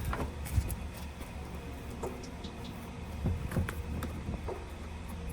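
A few soft knocks and light clunks of car interior parts being handled and eased out, over a steady low hum.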